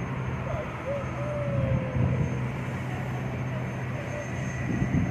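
Steady low engine drone, with a faint tone sliding slowly downward a second or two in.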